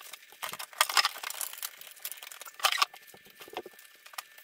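Rustling and scraping of cables and a plug being handled behind a desk, with scattered light clicks and knocks, and louder scrapes about a second in and just before three seconds.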